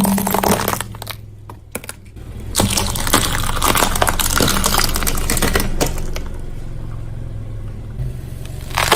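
A car tyre rolls over and crushes brittle objects: a short crunch at the start, then about three seconds of dense crackling and snapping. The car's engine runs low underneath.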